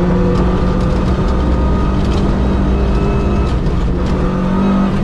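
Suzuki Swift 1.3 GTi 4x4 rally car's four-cylinder engine held at steady high revs, heard from inside the cabin, its note rising slightly near the end. The car rattles hard over cobblestones underneath.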